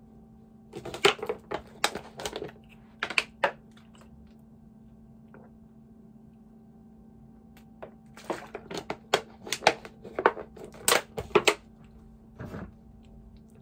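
Plastic water bottle being handled, with sharp clicks and crinkles of the thin plastic and its cap. They come in two spells of rapid clicking with a quiet stretch between, while the bottle is drunk from.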